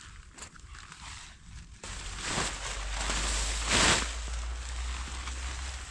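Rustling and handling noise from a tent being pitched, with two louder swishes about two and four seconds in over a low rumble.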